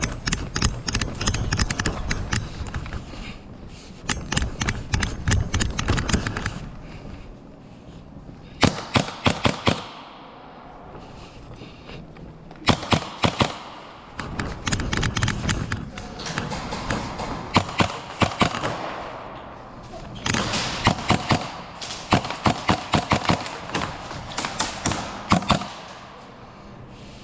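Airsoft guns firing in rapid bursts, several shots a second, in repeated strings.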